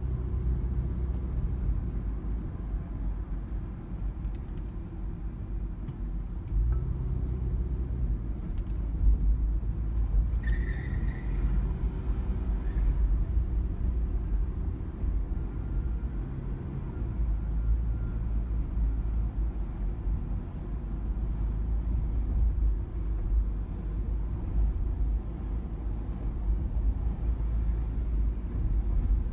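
Steady low rumble of a car's engine and tyres heard from inside the cabin while driving slowly, swelling and easing a little. A brief higher-pitched sound cuts in about ten seconds in.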